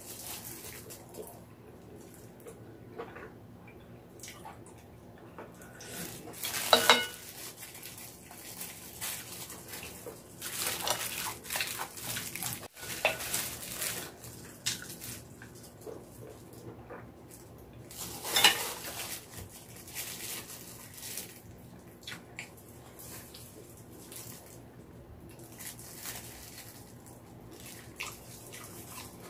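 Wet chewing and lip smacking while eating sticky, sauce-glazed pork trotters, with wooden chopsticks clicking against the pan and dishes. Scattered sounds throughout, with the loudest about seven seconds in and again about eighteen seconds in.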